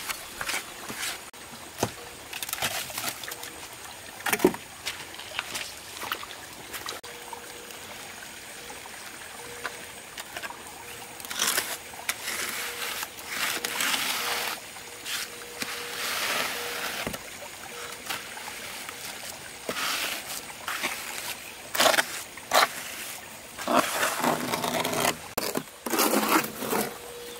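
Hand trowel scraping and smoothing wet concrete on a slab, in irregular strokes with occasional sharp taps and wet slaps.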